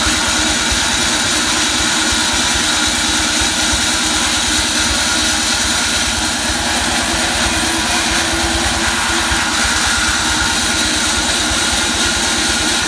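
Large vertical band saw running steadily and loudly while mahogany boards are ripped on it.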